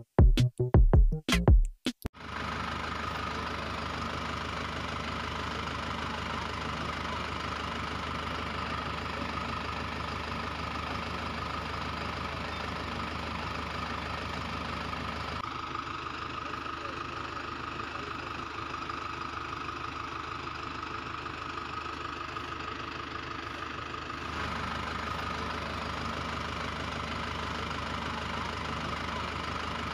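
Electronic music with a drum-machine beat cuts off about two seconds in, giving way to a steady engine-idling sound. The engine sound stays even throughout, its low hum dropping back for a stretch in the middle and then returning.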